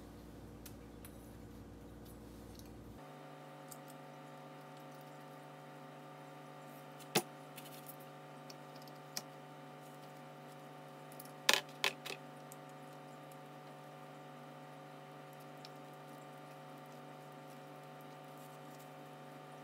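A few sharp metallic clicks and clinks from a starter motor's steel housing and its pole-shoe screws being handled and threaded in by hand: one click about seven seconds in, a fainter one near nine seconds, and a short cluster around twelve seconds, over a steady background hum.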